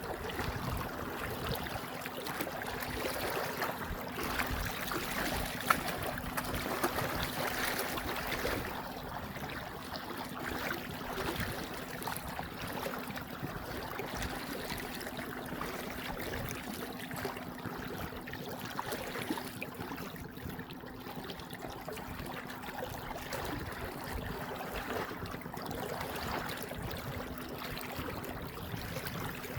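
Running river water, a steady rushing and gurgling, with a couple of sharp knocks or splashes about six seconds in. A faint steady hum sits underneath and stops shortly before the end.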